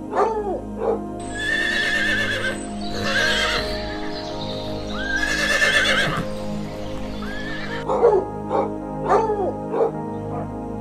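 Horses whinnying, several long wavering neighs from about one to seven seconds in, over steady background music. Short dog barks come at the start, and a few more short calls near the end.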